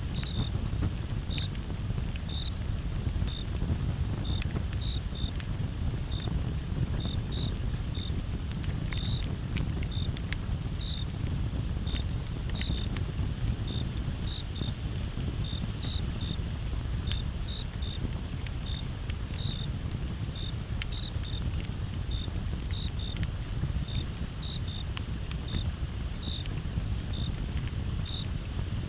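Campfire crackling, with scattered sharp pops over a steady low rumble, while crickets chirp in short, evenly pitched chirps about once or twice a second above a steady high cricket chorus.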